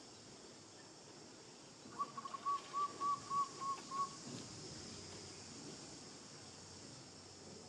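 A bird calling: a quick run of about eight short whistled notes, about four a second, starting about two seconds in and lasting about two seconds. A steady high insect hiss runs underneath.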